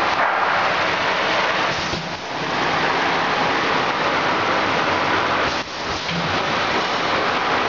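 Ice lolly tube filling and sealing machine running: a steady, loud rushing noise that dips briefly about two seconds in and again near six seconds.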